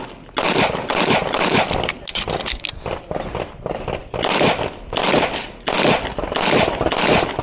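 Pistol shots fired rapidly in a shooting string, often in quick pairs at about two to three shots a second, with a short pause a little past halfway before the fire resumes.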